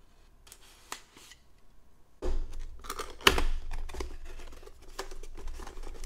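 A utility knife slitting the tape seal on a cardboard box, faint at first, then the box being opened and its cardboard tray slid out: scraping and rubbing of cardboard from about two seconds in, with a sharp snap a second later.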